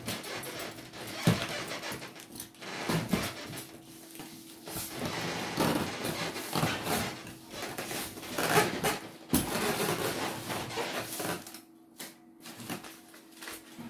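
Cardboard shipping box and its packing being handled: irregular rustling and scraping, with a sharp knock about a second in and another about nine seconds in, over a steady low hum.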